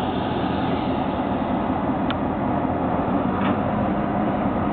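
EMD GP38-series diesel locomotive engines running steadily, with a short click about two seconds in.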